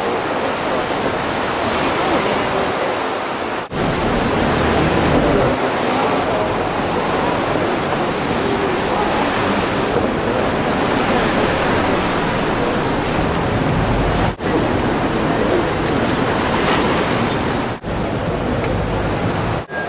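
Steady rushing of sea water around a moving boat, mixed with wind noise on the microphone, broken off for an instant a few times.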